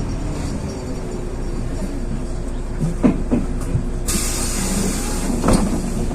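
Inside a LiAZ 6213.22 articulated city bus on the move: a steady running drone with a faint steady tone, and a few body knocks and rattles about three seconds in. About four seconds in comes a sharp hiss of compressed air lasting about a second and a half, ending with a thump.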